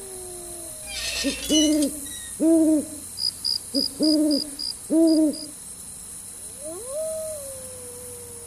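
Owl hooting: a run of short, identical hoots repeating for a few seconds, with a quick string of high pips in the middle. About seven seconds in comes a long call that rises and then slowly falls.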